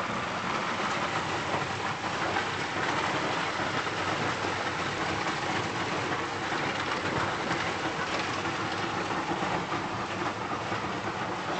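Small motorboat under way: a steady rush of engine, water and wind noise.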